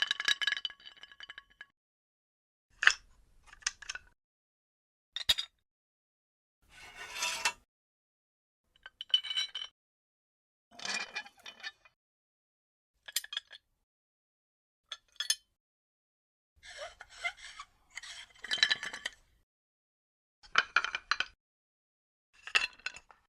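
Metal pieces clinking, rattling and scraping against each other in about a dozen short, separate bursts, some with a brief metallic ring, divided by dead silence: a torture-rack sound effect.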